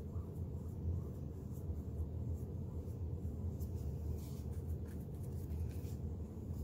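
Paintbrush brushing acrylic paint across a canvas in a run of soft, scratchy strokes, more of them in the second half, over a steady low background hum.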